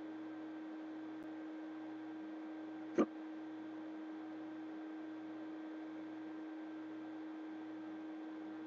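A single hiccup about three seconds in, part of a long-running bout of hiccups, over a steady hum.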